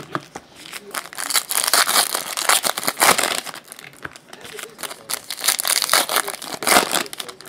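Trading-card pack wrappers crinkling in irregular bursts as packs are handled and opened.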